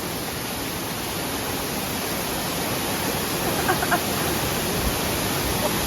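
Steady rushing of a waterfall, with faint voices briefly about four seconds in.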